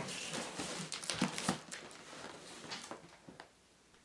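Cardboard boxes being handled: a rustling, crinkling sound with a few light knocks, dying down after about three seconds.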